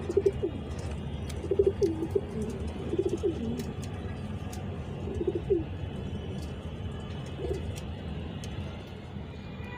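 Domestic pigeon cooing in short, low phrases, about five of them, with a steady low hum underneath.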